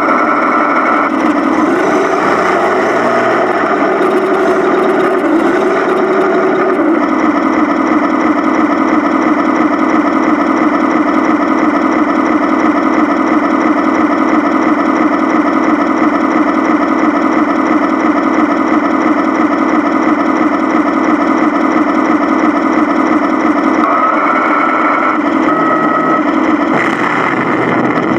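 1/16 Tamiya RC tank's onboard sound unit playing a simulated tank engine through its small speaker. The engine revs and changes pitch for the first few seconds, then idles steadily, and shifts pitch again near the end.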